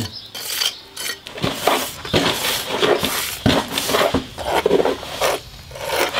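Steel jointing iron scraping and smoothing fresh lime and trass-cement mortar in the joints of a slate rubble wall, in a run of irregular short scraping strokes.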